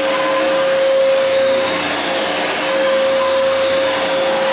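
Fantom Cyclone XT bagless upright vacuum running on carpet, a steady high motor whine over the rush of air, as it makes passes to pick up cat litter.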